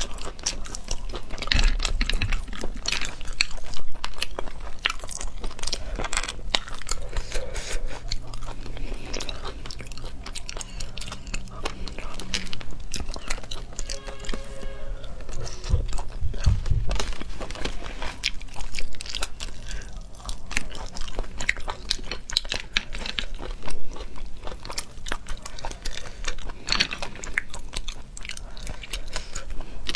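Close-miked chewing and wet mouth sounds of someone eating cooked sea snails picked from their shells with a toothpick, with many small clicks.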